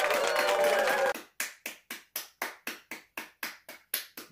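Hands clapping. Denser clapping mixed with cheering cuts off sharply about a second in, leaving steady single claps at about four a second.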